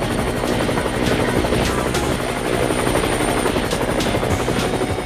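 Helicopter sound effect: steady rotor and engine noise.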